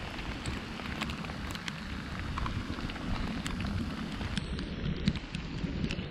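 Steady rain with scattered sharp drop ticks, over a low rumble.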